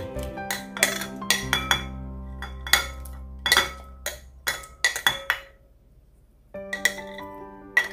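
Light clinks of a plate and ladle against a glass bowl as sliced chilies are tipped into pickling brine and stirred. The clinks come at irregular moments over background music, which drops out for a moment about six seconds in.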